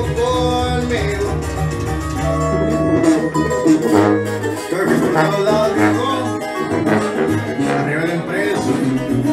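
Music: plucked strings over a steady, stepping bass line, with a singing voice.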